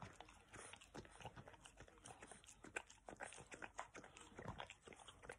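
French bulldog puppy licking and chewing an ice cream bar off its stick: faint, irregular wet smacking and lapping clicks.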